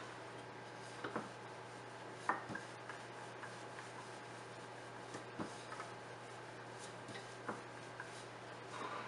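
Wooden rolling pin rolling out paratha dough on a marble board: soft rubbing strokes with a few short knocks, the loudest a little over two seconds in.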